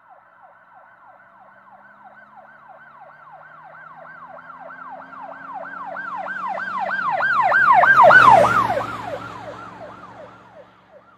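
Emergency vehicle siren on its fast yelp setting, about three falling sweeps a second, growing steadily louder as it approaches, loudest about eight seconds in, then dropping a little in pitch and fading as it passes. The vehicle's engine is heard under it as it goes by.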